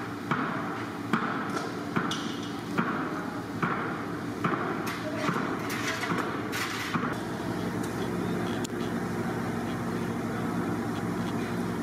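Grilled chicken being knocked off metal kebab skewers into a large aluminium tray: a thud with a short clatter about every second. From about seven seconds in the knocks stop and a steady low hum is left.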